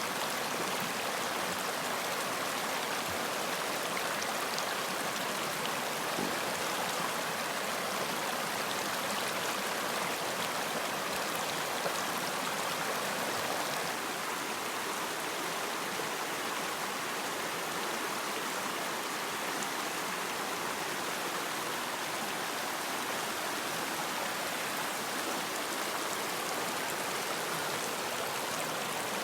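Running water, a steady rush with faint splashes and ticks, slightly quieter from about halfway through.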